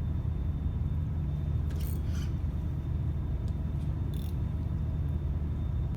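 Steady low rumble, with a few faint light clicks about two and four seconds in.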